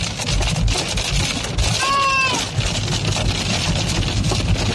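Heavy rain drumming on a car's body and windows, a dense patter over the low rumble of the car's engine. About two seconds in, a brief high-pitched call rises and falls over it.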